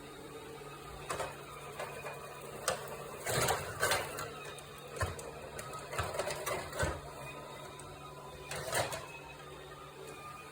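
LG Roboking robot vacuum cleaner running with a steady motor hum, broken by irregular clicks, knocks and clatter, several in quick succession in the middle and another cluster near the end.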